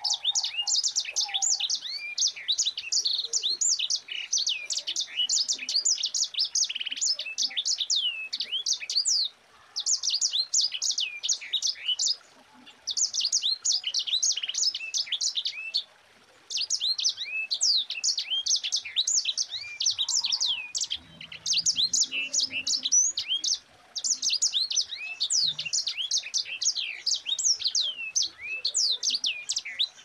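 Sanger finch singing its long, dense rolling song: rapid high twittering notes sliding up and down, strung into phrases several seconds long with a few short pauses between them.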